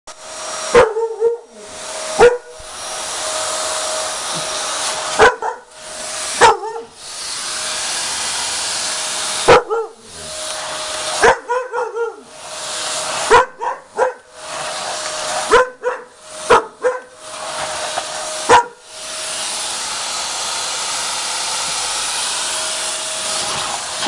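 A vacuum cleaner runs with a steady rushing noise while a husky barks loudly at it about a dozen times, singly and in quick runs of two or three. The barking is the dog's fear of the vacuum.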